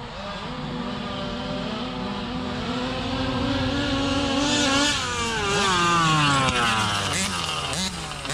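Two-stroke big-bore gas engines of large-scale RC trucks running at high revs. Their pitch holds steady at first, then falls from about five seconds in as they back off or pass by.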